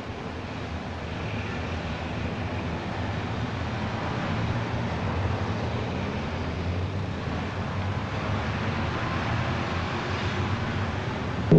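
Steady din of busy city street traffic, a rushing noise that slowly grows louder.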